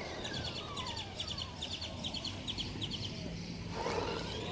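A small bird chirping rapidly, in short high notes about three a second, that stop a little after three seconds in. Under the chirps, a fainter whine falls steadily in pitch over the first second or so.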